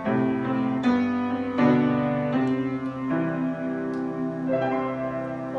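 Piano playing slow, sustained chords, a new chord struck a little more often than once a second, each ringing on into the next.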